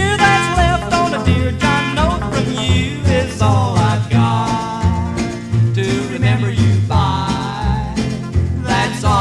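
1950s rockabilly record playing: guitar and a bass line over a steady beat, with a wavering lead line above.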